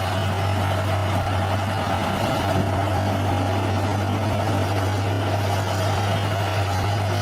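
Heavy earthmoving machine's diesel engine running steadily: a constant low drone that holds the same pitch and level throughout.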